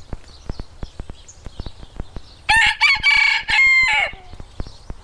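A rooster crowing once: a cock-a-doodle-doo of about a second and a half, starting about two and a half seconds in and ending on a falling note.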